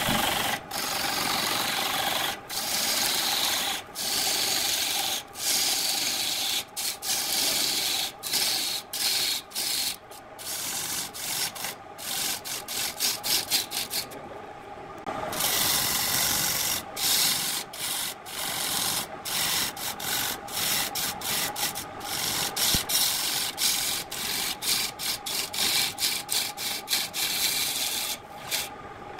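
Lathe tool cutting a spinning wooden vase blank: a rough, hissing scrape of shavings peeling off, broken by many short gaps, with a steady hum from the lathe running under it.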